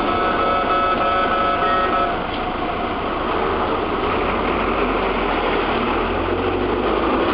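Kintetsu electric train running past at close range. A steady whine of several pitches lasts about two seconds, then gives way to an even rushing of wheels on rail, with a low rumble from about four seconds in until near the end.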